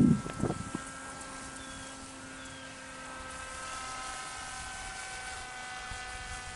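Electric motor and propeller of a VersaWing KFm3 RC flying wing whining steadily in flight, a thin layered tone that shifts slightly in pitch as it flies. A low rumble on the microphone dies away within the first second.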